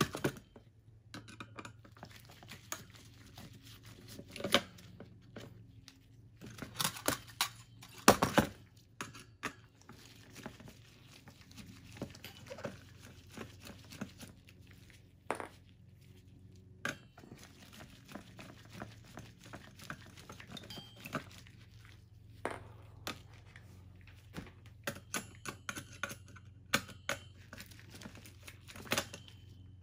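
Phillips screwdriver working screws out of a graphics card's circuit board: scattered small clicks, taps and scrapes of metal on screws and board, with handling knocks of the card. The knocks are loudest about four to eight seconds in and again near the end.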